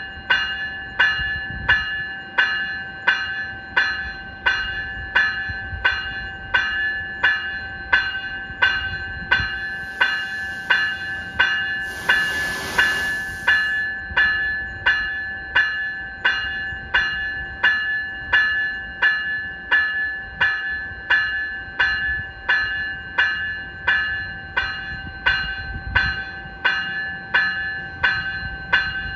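Graham-White E-Bell electronic locomotive bell on a commuter rail cab car ringing steadily, about one and a half strikes a second, each strike fading into the next, over a steady hum. A hiss cuts in about ten seconds in and is loudest for a couple of seconds around the middle.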